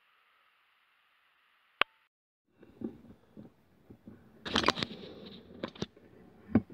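A sharp click about two seconds in, then a run of irregular knocks, taps and rustling handling noises, loudest a little past the middle.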